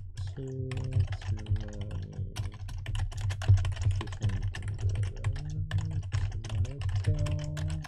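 Rapid typing on a computer keyboard, many quick keystroke clicks in a steady stream as a chat message is typed.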